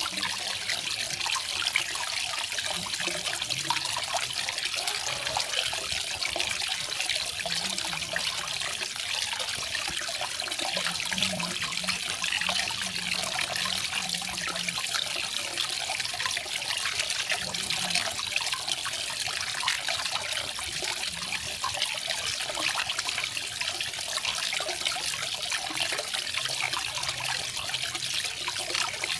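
Garden waterfall: water falling and splashing steadily, a bright, even splash without breaks.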